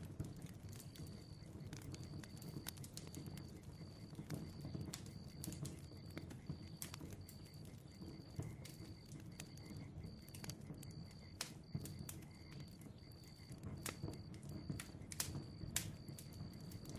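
Bonfire burning, with a steady low rumble of flames and irregular sharp crackles and pops from the burning wood. Throughout runs a high, evenly pulsed chirp, a little faster than once a second.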